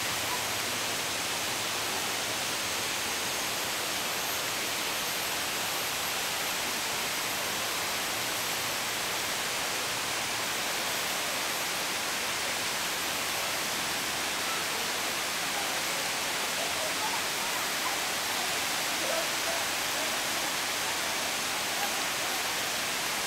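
Steady, even rushing noise with no breaks, with faint distant voices in the second half.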